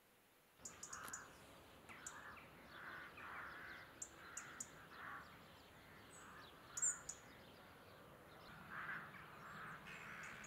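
Faint outdoor birdsong setting in just under a second in: crows cawing over and over, with short high chirps from smaller birds in between.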